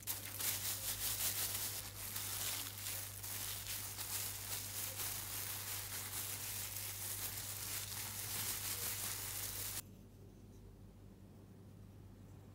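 Steady dry scratching and rasping of a tool working wood, which cuts off abruptly about ten seconds in.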